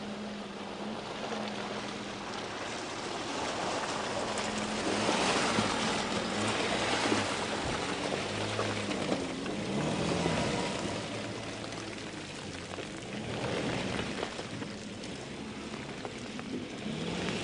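Toyota Hilux's 2.8-litre four-cylinder diesel engine working off-road, its note rising and falling, under the splash and churn of tyres through mud and puddles, loudest around the middle.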